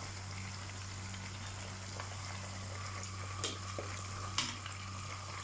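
Sliced green chilies frying in hot oil in a wok, a steady sizzle over a low constant hum. A few sharp clicks come in the second half.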